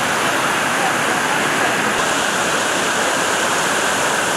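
River water rushing over rocky rapids: a steady, unbroken white-water noise.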